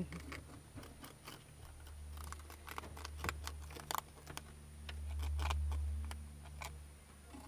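Rabbits eating greens and bread: irregular crisp clicks and crunches of chewing and rustling leaves. A low hum swells and fades about five to six seconds in.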